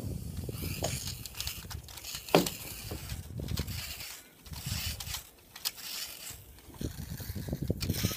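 Outdoor ambience with gusty wind buffeting the microphone and scattered clicks and crackles, one sharp click about two and a half seconds in.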